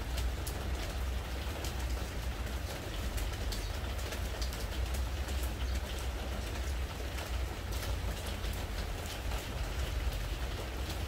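Spring rain falling steadily on a pressure-treated wooden deck, with many separate drops ticking against the boards over the even hiss of the rain. A steady low rumble runs underneath.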